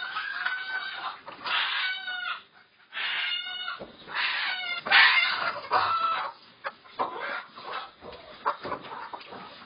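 A shed full of layer hens squawking and clucking, a run of loud calls one after another for the first six seconds, then quieter clucking.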